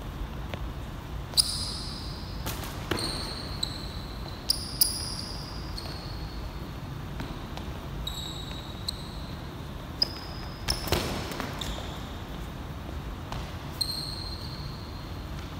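Sneakers squeaking in short chirps on a gym court floor as two boxers shuffle and pivot while sparring, with a few sharp thumps of gloved punches landing.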